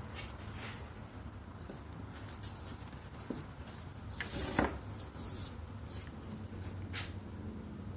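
Quiet handling of PVC pipes and a can of PVC cement: small clicks, scrapes and rustles over a steady low hum, with a single knock about four and a half seconds in.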